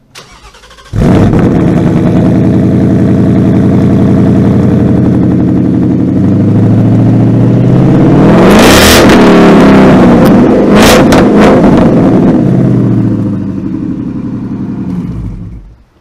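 Supercharged 5.0 Coyote V8 of a Roush JackHammer Mustang at its quad-tip dual exhaust: it fires up about a second in and runs steadily. It is then revved, its pitch rising to a peak about eight to nine seconds in and falling back with a few sharp cracks. It eases down and cuts off near the end.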